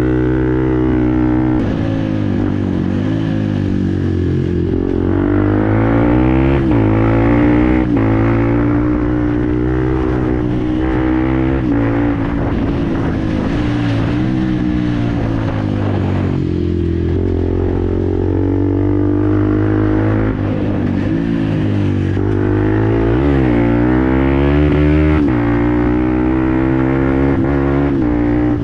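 Fantic Performance 125 Motard's single-cylinder four-stroke engine running through a GPR aftermarket exhaust. The engine revs up and down, its pitch rising and falling several times.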